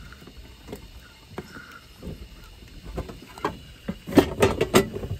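Plastic and metal handling clicks as a power plug is pushed into a weatherproof outdoor outlet, then a quick run of loud knocks and clatter about four seconds in.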